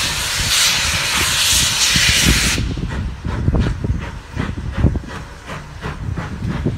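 Steam locomotives 1450 and 7714, a GWR 14xx 0-4-2 tank and a GWR 57xx pannier tank, setting off: a loud hiss of escaping steam that cuts off suddenly about two and a half seconds in, followed by low exhaust chuffs as they pull away.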